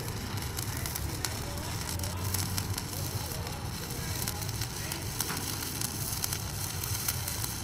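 Stick-welding arc at about 135 A with a 3.2 mm electrode, crackling and sizzling steadily with many sharp crackles as it runs a bead on 12 mm steel plate.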